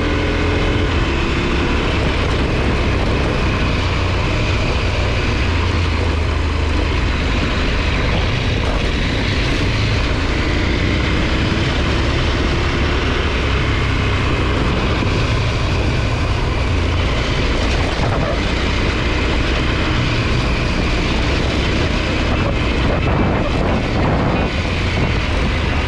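2023 KTM 890 Adventure R's parallel-twin engine running while the bike is ridden off-road, heard as a steady, loud, low rumble.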